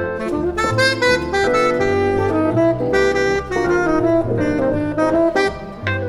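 Tenor saxophone playing a jazz melody line of quick, moving notes, with piano and guitar accompaniment underneath.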